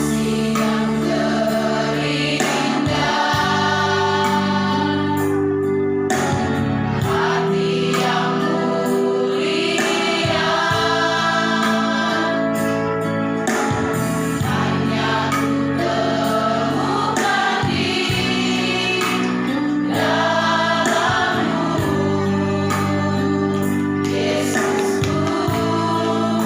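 Church choir singing a gospel hymn in harmony, holding long chords in phrases of a few seconds each.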